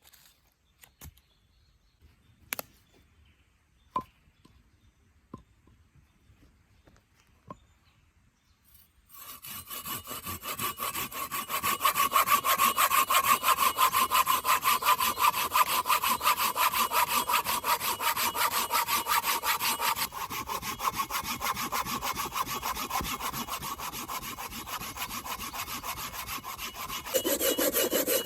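A few faint knocks and clicks, then from about nine seconds in a Silky BigBoy folding hand saw cutting through wood in rapid, steady back-and-forth strokes. The pitch of the cut changes near the end.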